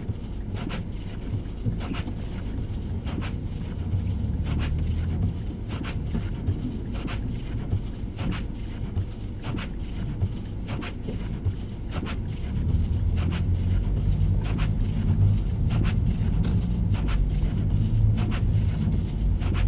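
Car driving on a snow-covered road: a low engine and tyre rumble that grows louder about halfway through, with scattered sharp crackles.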